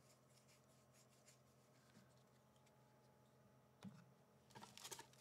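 Near silence: quiet room tone with a faint steady hum. About four and a half seconds in, the crinkling of a Magic: The Gathering Jumpstart booster pack wrapper being handled begins.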